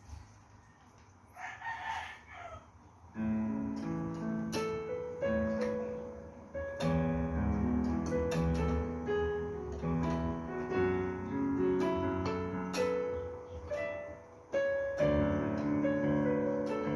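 Digital piano played with a piano sound, both hands, starting about three seconds in: low chords under a right-hand melody, with a brief break near the end before the playing resumes. Before it starts, a short call sounds in the background.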